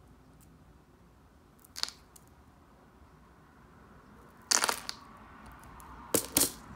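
Small handling noises of a glue tube and a plastic applicator bottle over quiet room tone: a light click about two seconds in, a short crinkly crunch about four and a half seconds in, and two quick clicks near the end.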